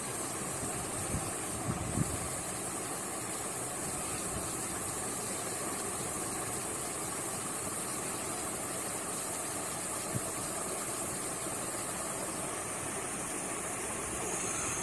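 Steady whirring hum of an LED PCB heating machine as it heats the board to solder the LEDs down, with a few faint taps.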